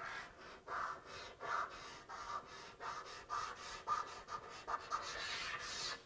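Felt-tip marker writing a signature on a PC case, rubbing across the surface in short strokes about two a second.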